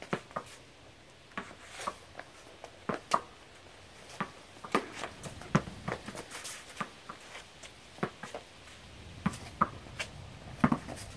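Tennis rally with junior rackets on a concrete patio: a series of sharp, irregular pocks as the ball is struck by the strings and bounces on the concrete.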